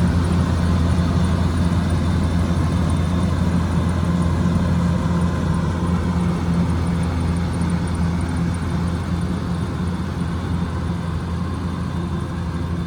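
Kubota DC105X combine harvester's diesel engine running steadily with a low drone, growing slightly quieter over the last few seconds.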